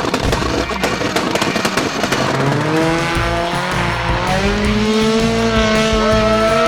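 Car engine revving in a rising whine, with tyre squeal, holding high through the second half.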